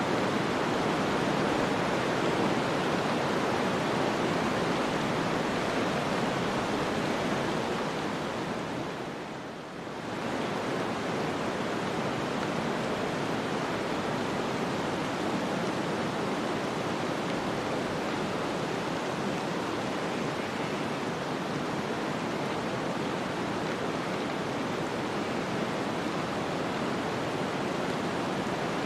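Steady rushing wind noise of a snowstorm ambience, an even hiss with no distinct events. About a third of the way in it fades down briefly, then comes back abruptly.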